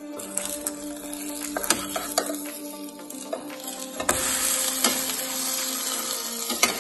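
Omelette frying in oil in a nonstick pan, sizzling, with a few sharp clicks of a metal spatula against the pan as it is turned. The sizzle grows louder about four seconds in, as the omelette is flipped onto its uncooked side. Background music plays throughout.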